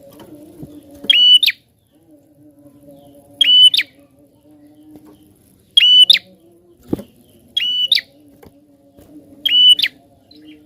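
A prinia (prenjak) giving short, sharp, loud calls about every two seconds, five in all. Under them runs a faint low steady hum.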